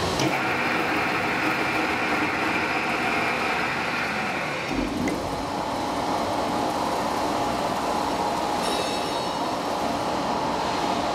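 W11-10X3000 mechanical three-roller symmetrical plate rolling machine running, its gearbox driving the two bottom rolls as a steel plate is bent around the top roll. There is a steady mechanical whine that drops lower about halfway through, with a short knock at the change.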